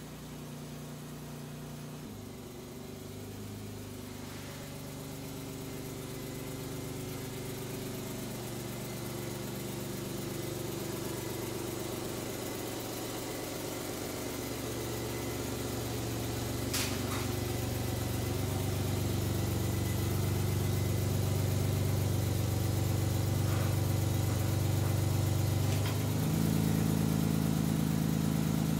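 2004 Honda Odyssey's V6 engine running at low speed as the minivan pulls into the garage. It grows steadily louder as the van comes closer, and its pitch shifts a few times. A single sharp click sounds about 17 seconds in.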